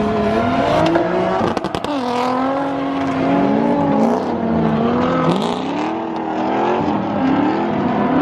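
Drift car engine revving up and down over and over as the throttle is worked, with a brief burst of sharp crackles about a second and a half in.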